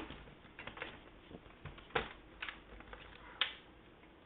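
Faint, scattered clicks and taps of a plastic laptop being handled, about half a dozen light knocks spread irregularly.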